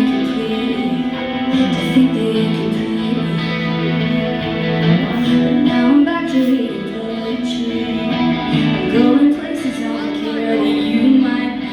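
Live band music with guitar to the fore, held notes changing every second or so.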